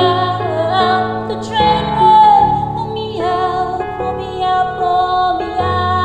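A woman singing a slow pop ballad with long, wavering held notes over a karaoke piano backing track.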